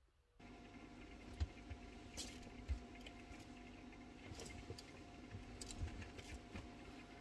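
Faint handling of a phone held close, with blanket fabric rustling and two soft knocks, the first about a second and a half in and the second near three seconds, over a steady low hum.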